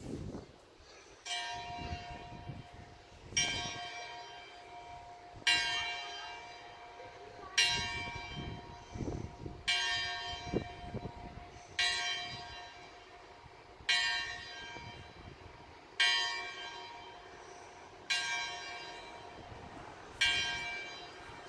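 A single church tower bell struck ten times at an even pace, about one stroke every two seconds. Each stroke rings on and fades before the next.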